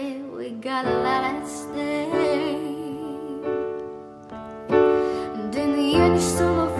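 Slow, tender background song: piano with a female voice singing long, wavering notes.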